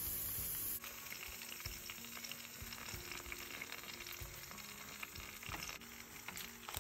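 Peppers, zucchini and carrot slices sizzling on a barbecue grill grate: a crackly hiss with occasional light clicks. The sound changes abruptly about a second in.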